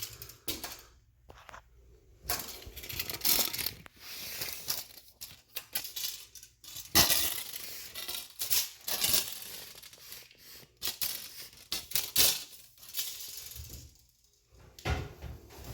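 Irregular metallic clicks, rattles and scrapes: a metal tape measure being pulled out and handled while measuring a smoke detector's distance from the wall and a ceiling fan.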